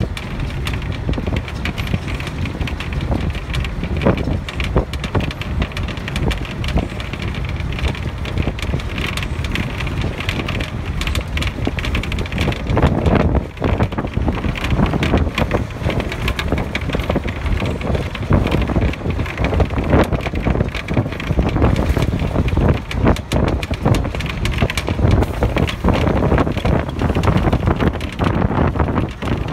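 Wind buffeting the microphone in irregular gusts over the steady rumble of a moving vehicle.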